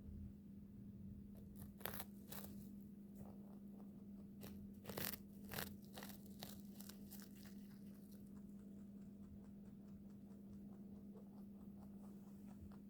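Pet rabbit making a run of small, sharp, crunchy clicks, with two louder pairs about two and five seconds in, over a faint steady hum.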